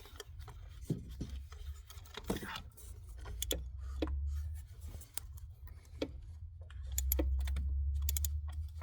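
Metal socket extensions and tools clicking and clinking as they are fitted together and worked down into the engine bay to reach a spark plug, many short sharp clicks. A low rumble swells about four seconds in and again for the last two seconds.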